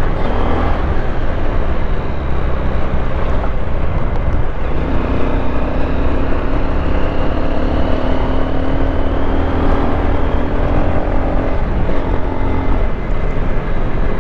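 Motorcycle engine running on the move. Its pitch climbs slowly from about a third of the way in, then drops back near the end.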